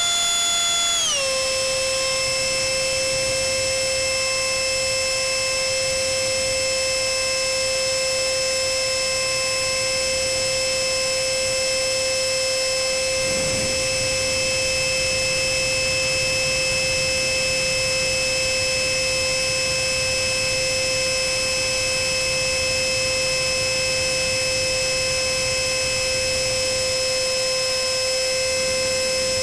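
Electric ducted fan (GWS 64 mm unit driven by a Cyclone Power CP400 brushless motor) on an RC foam model jet, whining steadily as heard from a camera on the airframe in flight. It drops in pitch about a second in, then holds one steady pitch.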